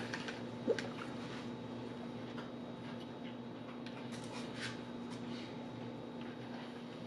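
Drinking from a large insulated water bottle through its straw spout: faint sucking and swallowing with a few soft clicks, over a steady low hum.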